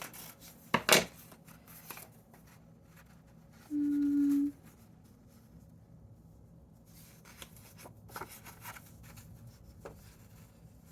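Paper being handled and cut. There are a couple of sharp snips or clicks about a second in, then faint rustling and small ticks of paper pieces being moved. A brief steady tone sounds for under a second about four seconds in.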